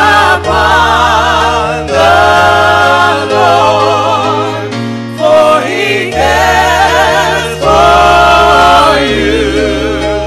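Gospel choir singing in phrases of about two seconds, voices wavering with vibrato, over held low bass notes.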